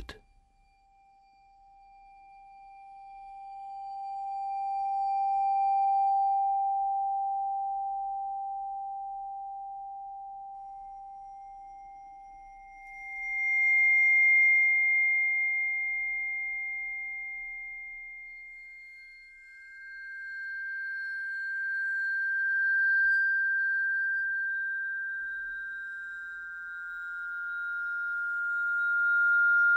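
Music of long, pure held tones, each swelling slowly and fading away. A lower tone sounds through most of the first two-thirds. A higher tone enters partway through, and two more high tones overlap near the end.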